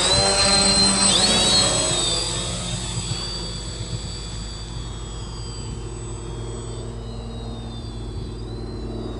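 X-CAM 450 electric quadcopter's motors and carbon propellers buzzing in flight. The sound fades over the first few seconds as the copter flies away across the field and climbs, then holds steady and fainter.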